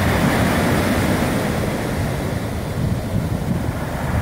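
Ocean surf breaking and washing over a beach of black lava pebbles, a steady roar of water, with wind rumbling on the microphone.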